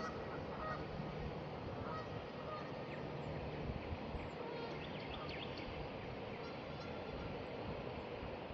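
Strong wind buffeting the microphone in a steady low rumble, with a few faint, short bird calls in the first couple of seconds.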